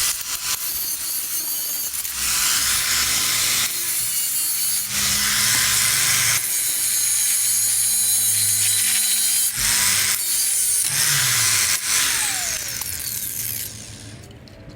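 Handheld power tool cutting away metal in several long runs, a harsh grinding hiss over the motor's whine, which spins up at the start of each run and winds down between them.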